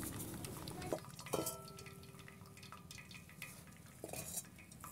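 Whey draining from freshly curdled chhena through a cotton cloth into a steel pot, faint dripping and trickling with small clicks. About a second and a half in, a light knock on steel rings briefly.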